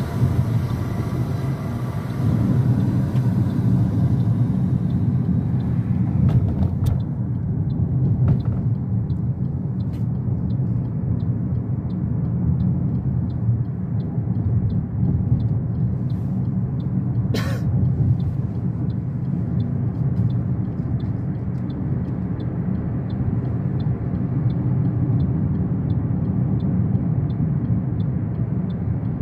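Steady road and engine rumble heard inside a moving Toyota Corolla's cabin. Faint regular ticking, about one and a half ticks a second, starts about eight seconds in, and there is a single sharp click a little past halfway.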